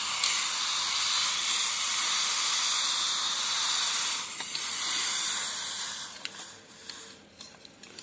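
Hot electric water-heater element, powered directly from solar DC, sizzling in a bowl of ice water: a steady hiss of water flashing to steam on the metal. It dips briefly about four seconds in, then thins out and fades over the last two seconds.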